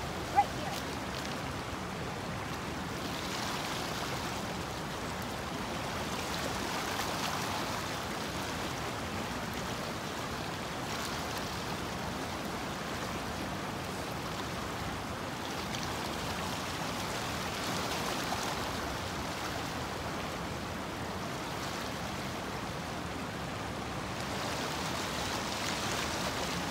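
A small stream rushing steadily, its noise swelling gently every several seconds. There is one sharp click just after the start.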